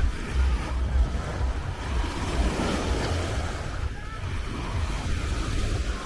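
Small waves breaking and washing up onto the sand, with wind buffeting the microphone in gusts and faint voices of people on the beach.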